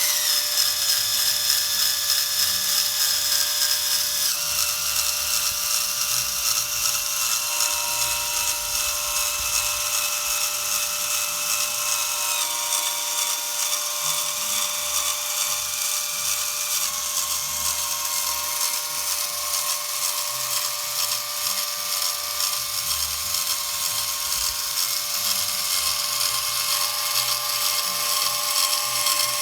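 Variable-speed electric drill running a homemade bag-ventilator mechanism, friction-driving a grinding wheel that cranks the Ambu-bag bellows lever. The sound is a steady high whine whose pitch steps down a few times.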